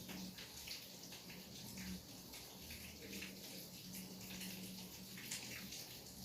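Rain falling steadily at night, a soft hiss with many separate drops ticking through it. A faint low hum comes and goes underneath.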